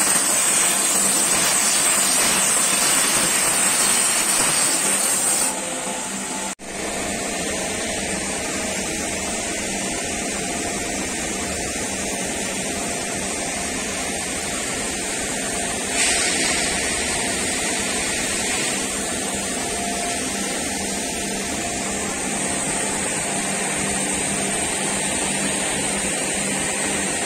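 Gas torch hissing steadily as its flame plays over the face of a stone slab, flame-finishing it to a rough texture. About six seconds in, the sound cuts out for a moment, and a somewhat quieter steady rushing noise with a low hum carries on.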